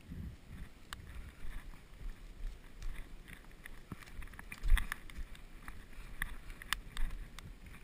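Hurried footsteps crunching over pine needles and twigs on a forest floor, with clothing and gear rustling and knocking against a body-worn camera. Scattered sharp clicks run through it, and there is a heavier thump about four and a half seconds in.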